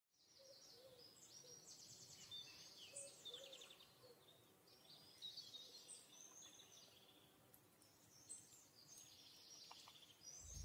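Faint birdsong: several short chirps and quick trills, with a few lower notes underneath.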